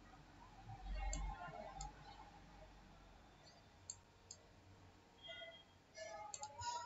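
Faint computer mouse clicks: a couple of short sharp clicks past the middle and a quick cluster near the end, with a low dull thump about a second in.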